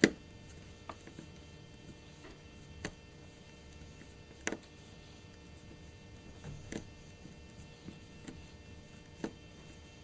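Small sharp clicks of a screwdriver working a screw in a Titanium PowerBook's base plate: a loud click at the start, a strong one about halfway, and a few fainter ones a second or two apart, over a low steady hum.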